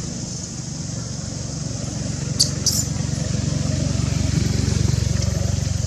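A motor engine runs steadily as a low rumble, growing louder past the middle, over a steady high hiss. Two short, sharp high-pitched sounds come in quick succession a little before the middle.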